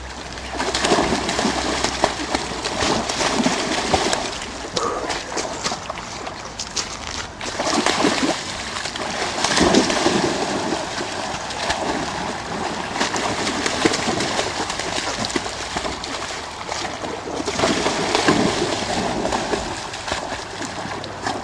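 A large dog wading and running through a shallow river, splashing and sloshing water in irregular surges.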